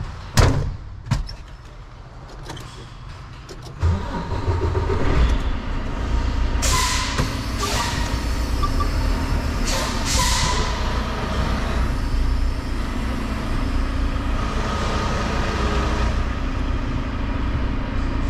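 Two sharp knocks, then about four seconds in a heavy diesel truck engine comes in suddenly and runs steadily with a low rumble. Two short hisses of air cut through it around seven and ten seconds in.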